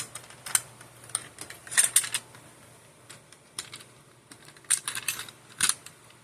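Clicks and clatter of a fire alarm pull station being key-activated and opened by hand: a dozen or so sharp clicks in small irregular clusters, the loudest around two seconds in and again near five seconds.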